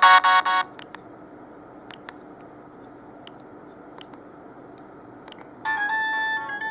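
Siemens C65 mobile phone ringtones. One ringtone cuts off suddenly under a second in, followed by a few seconds of low hiss with a few faint clicks. The next ringtone, a bright electronic tune, starts near the end.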